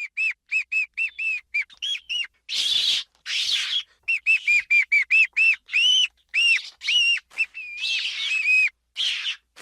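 Ferret giving a rapid run of short, high-pitched squeaks, several a second, broken by a few longer, harsher, breathy bursts.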